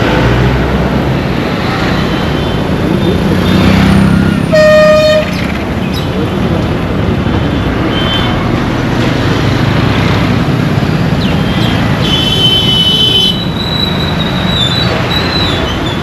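Road traffic with a steady rumble of engines and tyres. A vehicle horn honks loudly for under a second about four and a half seconds in, and a second, higher-pitched horn sounds for about a second around twelve seconds in.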